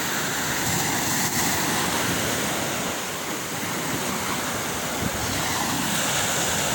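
Small waves breaking and washing up onto a sandy beach: a steady rush of surf.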